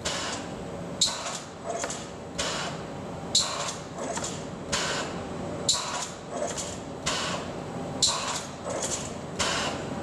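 Robot-mounted pneumatic nailing tool driving nails into a wooden beam in quick succession. Sharp shots come about every second and a quarter, each with a short hiss of air.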